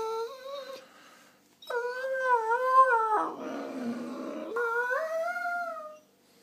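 German shorthaired pointer 'talking': a string of drawn-out, howl-like moans with wavering pitch. The moans dip into a lower, rougher stretch in the middle, and the last one rises in pitch before stopping about a second before the end.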